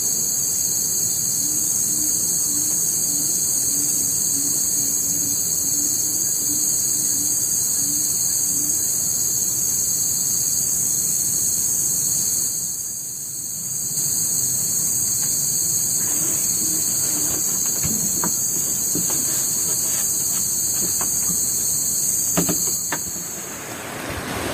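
Chorus of forest insects: a steady, high-pitched shrilling. A low call repeats about twice a second through the first part. Near the end the shrilling gives way to a rushing noise.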